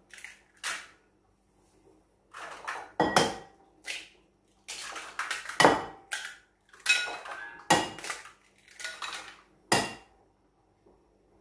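Raw eggs being tapped on the rim of a porcelain bowl and cracked open: a string of sharp knocks and clinks, some with a short ceramic ring, with eggs clinking together as more are taken from the egg bowl.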